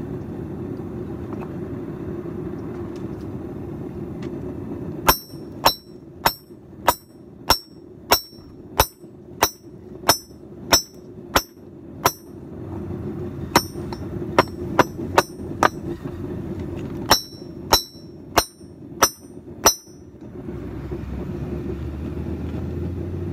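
Hammer blows on a hot railroad spike over a small 20-pound steel anvil, each strike ringing sharply. The strikes start about five seconds in and come in three runs with short pauses between them: about a dozen even blows, then a quicker half-dozen, then five more, ending a few seconds before the end. A steady low rushing sound runs underneath.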